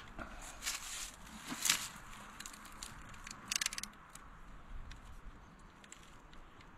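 Small clicks, scrapes and rustles of hands working electrical wire with a hand tool, with a quick run of clicks about three and a half seconds in.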